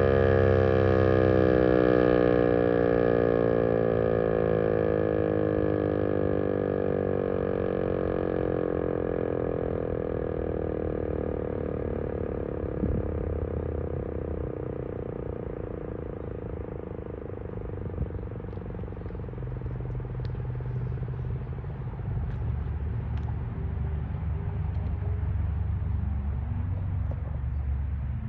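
ASC T-128 dual-tone rotating tornado siren winding down at the end of its Alert signal, its tones sliding slowly lower in pitch and fading out over about twelve seconds. After that, low traffic rumble, with vehicles passing in the second half.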